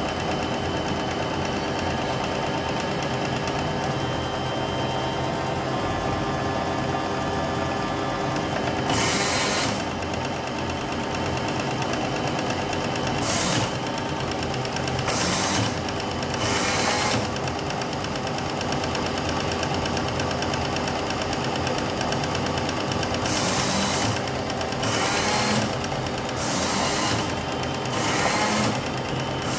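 Automatic Robot Baker baking machine running with a steady mechanical whir and hum. Short hisses break in about nine and thirteen seconds in, twice more a few seconds later, and several times over the last six seconds.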